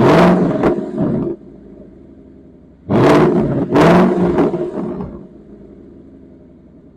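Ford Mustang GT's 5.0-litre V8 free-revving through its factory active exhaust with the resonators deleted. It gives a pair of quick blips, drops back to idle for about a second and a half, then gives another pair of blips and settles back to a steady idle.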